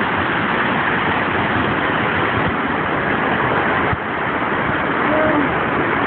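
Waterfall and cascading stream rushing in a steady, even roar of water.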